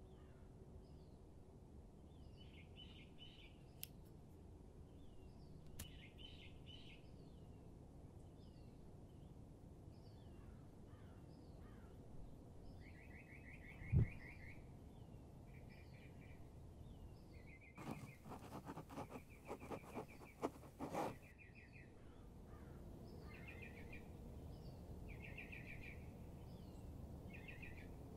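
Faint songbirds chirping, repeating short calls and quick trills over a low, steady background hum. About halfway through comes a single dull thump, and a little later a quick run of sharp clicks.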